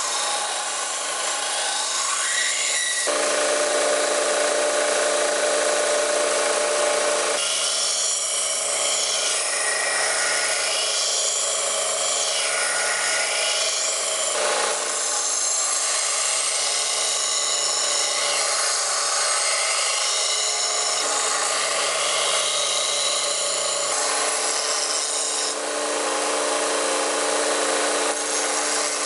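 Bench belt sander grinding a steel bar, the abrasive belt rasping against the metal over the motor's steady hum. The grinding shifts in pitch and character several times as the steel is pressed on and moved.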